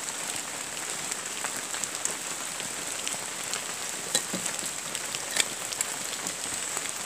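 Steady rain falling, an even hiss dotted with the taps of single drops, two of them sharper about four and five seconds in.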